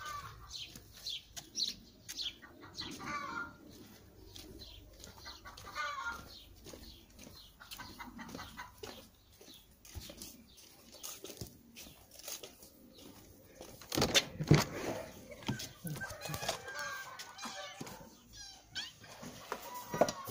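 Animal and bird calls against light footsteps, with a loud knock about two-thirds of the way through.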